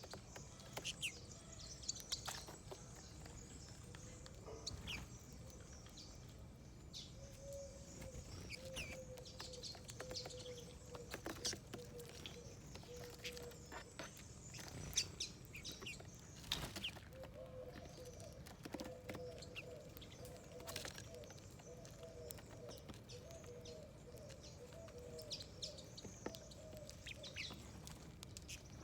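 Small wild birds at a feeding dish: scattered short high chirps, with many sharp clicks and taps throughout. A faint low, wavering drawn-out tone runs beneath for much of the time.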